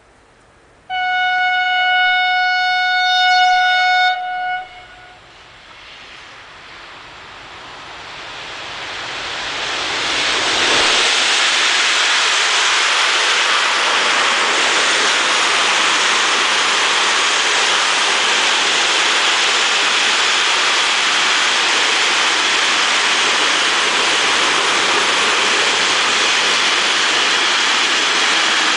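Electric locomotive (E186, a Bombardier TRAXX) sounds one long horn blast of about three seconds. Then its container freight train approaches and passes close by: the steady noise of wheels on rail grows over about five seconds and then holds.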